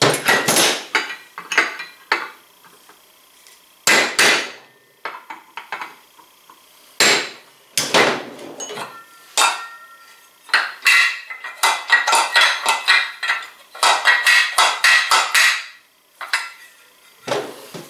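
Hammer striking a steel punch to drive a roller pin home in a Polaris RZR XP 1000 secondary clutch: sharp metallic strikes in several runs, the longest and quickest about two thirds of the way in, with a faint metallic ring between them.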